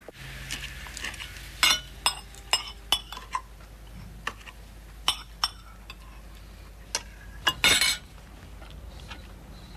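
Cutlery clinking and scraping on plates as people eat: irregular sharp clinks of spoons and forks, with one louder, longer clatter about eight seconds in.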